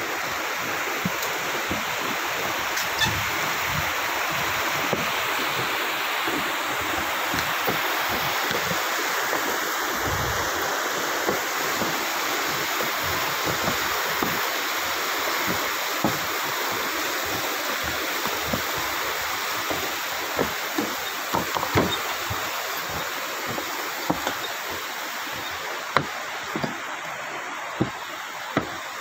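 Steady rush of a fast, shallow river running over rocks, with irregular low thuds of footsteps on the wooden planks of a suspension footbridge, a few louder thuds near the end.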